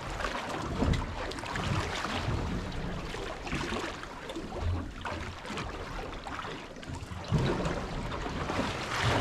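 Wind gusting on the microphone over water lapping at a small boat's hull, a shifting low rumble without any steady rhythm.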